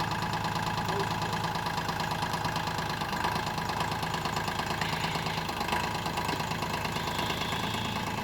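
An engine idling steadily with a fast, even pulsing beat.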